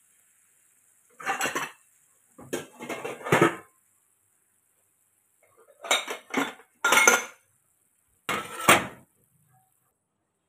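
A spatula scraping and clanking against a wok while stir-fried basil chicken is tossed and scooped up, in several short bursts with pauses between.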